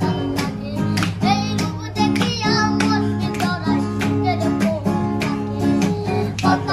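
Music: a Bengali song with acoustic guitar and a singing voice.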